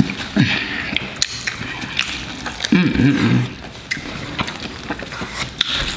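Close-miked eating sounds: chewing and handling burgers in paper wrappers, with scattered clicks and crinkles throughout, and a brief hummed voice sound about three seconds in.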